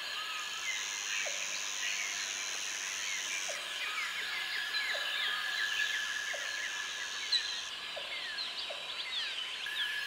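Bushland chorus of insects and birds: a steady high insect buzz, a second, higher insect trill switching on and off, many quick bird chirps, and a short low call repeating roughly once a second. A single sharp click about seven seconds in.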